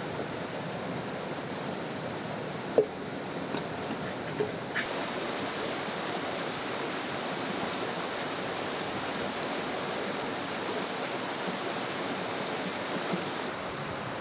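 Shallow mountain stream running steadily over rocks, with a sharp knock about three seconds in and a few fainter clicks shortly after.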